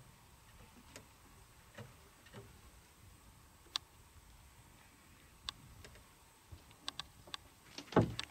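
Scattered faint clicks about a second apart, coming closer together towards the end, as a spinning rod and reel are worked. A loud short thump comes near the end.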